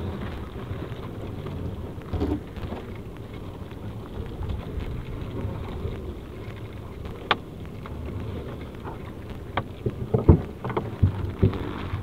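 Wet nylon gill net being hauled in over the side of a small boat: a rain-like patter of rustling and dripping over a low steady rumble, with a few sharp knocks in the last few seconds.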